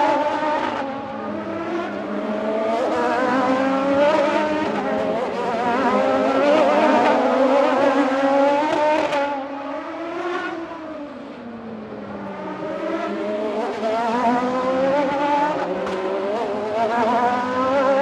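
Several racing motorcycles running at high revs, their engine notes overlapping and rising and falling as they accelerate and shift. The sound eases off for a couple of seconds about two-thirds of the way through, then builds again.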